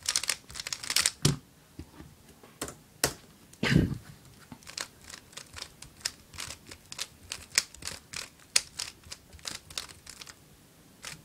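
Guhong v2 3x3 speed cube's plastic layers clicking as they are turned quickly by hand, in fast runs of clicks, with one dull thump about four seconds in. The clicking stops shortly before the end.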